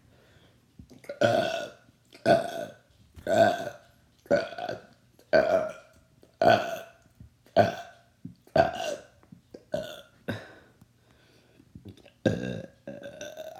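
A person burping over and over, about a dozen burps at roughly one a second, each about half a second long, with a short pause before the last couple.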